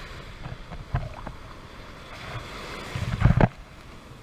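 Shallow surf washing over sand, a steady hiss of moving water, with wind buffeting the microphone; the loudest gust comes as a low rumble about three seconds in.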